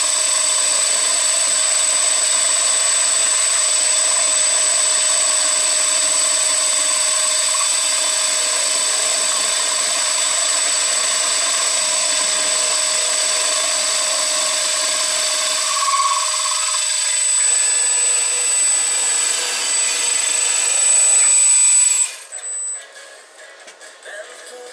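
CNC machine running steadily with a high, constant whine, cutting off sharply near the end.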